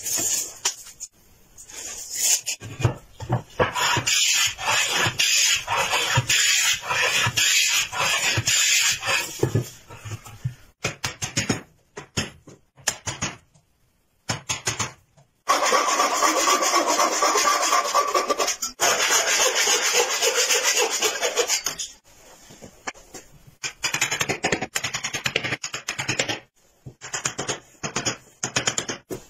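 Hand woodworking at a bench: two long stretches of steady scraping and cutting noise, then a run of separate hammer knocks as a wooden frame is tapped together near the end.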